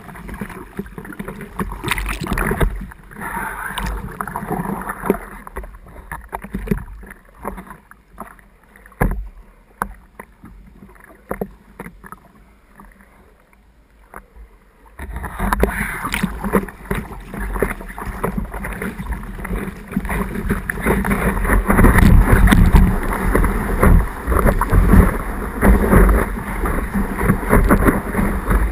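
Water splashing and sloshing against the nose of a surfboard as it is paddled, easing to light lapping and drips while the board sits still. About halfway in, a loud continuous rush of water with wind on the microphone starts suddenly and gets louder as the board catches and rides a wave.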